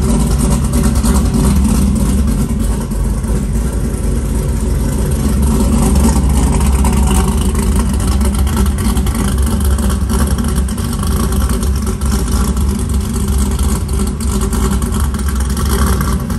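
Pickup truck engine idling steadily, a deep even rumble with no revving.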